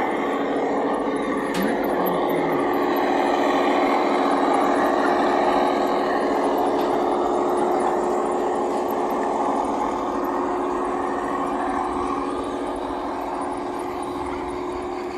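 A large engine running steadily: a droning hum over a rushing noise, easing off slightly toward the end.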